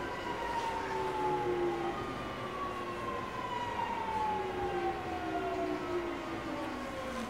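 Mitsubishi GTO VVVF inverter and traction motors of a JR 209 series 500-subseries train whining in several tones that fall steadily in pitch as the train brakes, over a low running rumble.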